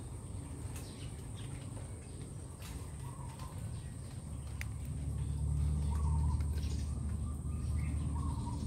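A few faint bird chirps over a steady low rumble, which grows louder about halfway through, with a constant high-pitched tone.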